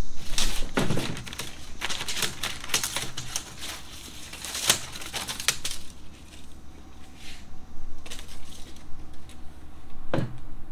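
Handling noise from small tools and a bow on a worktable: a quick run of clicks and rattles for the first six seconds or so, thinning out, then a single knock about ten seconds in.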